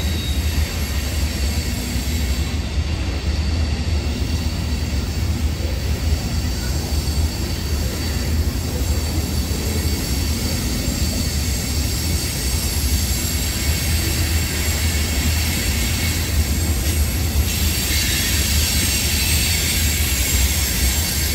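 Freight train of covered hopper cars rolling past with a steady low rumble, the wheels squealing high-pitched on the curve.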